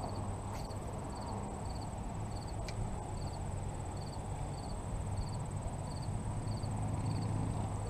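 Crickets chirping in short three-pulse chirps about twice a second, over a continuous high insect trill. Underneath is a steady low rumble of wind on the microphone.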